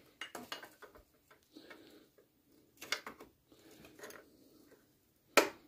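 Offset ring spanner clinking and scraping against the belt tensioner and nearby engine parts as it is fitted to slacken the ribbed auxiliary belt: a string of scattered light clicks and short scrapes, then one sharp loud clack near the end.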